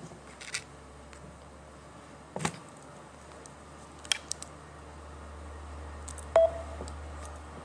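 A phone being handled up close: a few scattered taps and clicks, and a brief beep about six seconds in, over a low steady hum.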